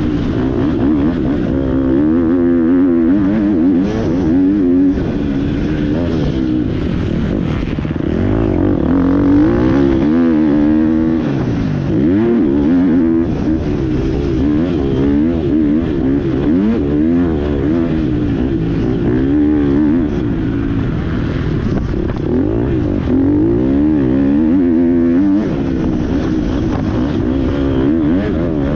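GasGas MC 250 motocross bike engine being ridden hard, its pitch climbing and falling again and again as the throttle is opened and shut through the track's sections.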